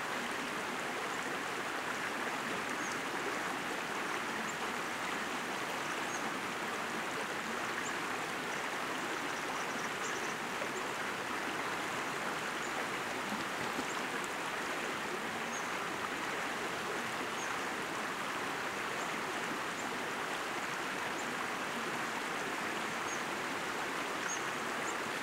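Steady rush of river water flowing over rocks, even and unbroken, with faint short high chirps now and then.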